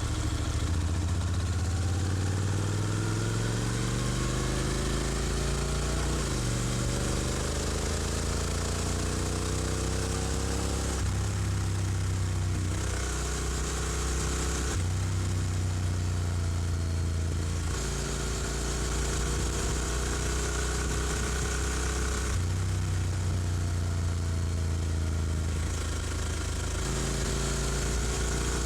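Honda NC750X parallel-twin motorcycle engine under way. Its pitch rises as it accelerates for about six seconds, drops suddenly at a gear change and climbs again, then runs at a fairly steady speed with several abrupt changes in tone.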